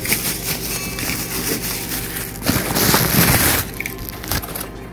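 Plastic bag crinkling and a cardboard box being handled while a new replacement range switch is unpacked. The noise is loudest about two and a half to three and a half seconds in.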